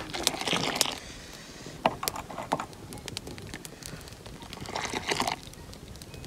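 Milk tea being ladled up and poured back into an aluminium pot over a fire, with two splashing pours: one near the start and one about five seconds in. Scattered small clicks and crackles run between them.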